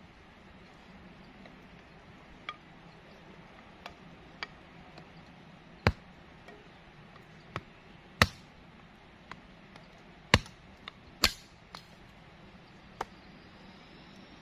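Sharp, irregular knocks of a tool striking wood, about a dozen spaced unevenly, the four loudest in the middle, over a faint steady hiss.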